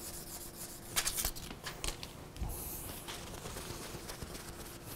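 Light hand rubbing on a chrome motorcycle fork tube: a few short scratchy strokes of 400-grit sandpaper about a second in, then the crinkle and rub of a paper shop towel wiping the tube. It is the removal of surface rust spots from the fork stanchion.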